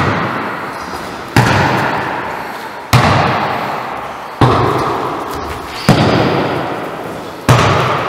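A volleyball being struck by hand: six sharp slaps about a second and a half apart. Each rings on in the long echo of a large gym hall.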